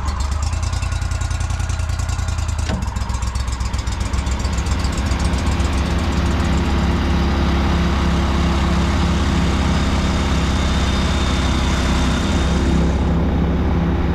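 ProDrive surface-drive outboard mud motor pushing a flat-bottom boat at speed: a loud, steady engine drone with the rush of water underneath.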